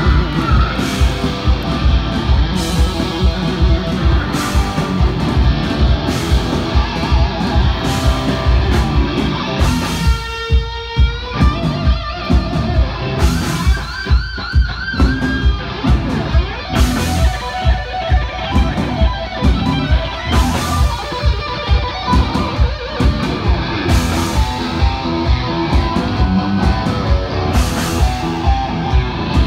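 A heavy metal band playing live through a club PA, led by a distorted electric guitar over bass and a steady drum beat. About ten seconds in, the drums and bass drop out for a moment and the guitar plays a run alone, then a few seconds later it plays held notes with bends and vibrato as the band comes back in.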